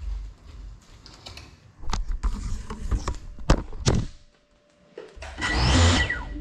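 Several sharp knocks and thuds as the FPV quadcopter is handled and set down on a tile floor, followed near the end by a louder rushing noise lasting about a second.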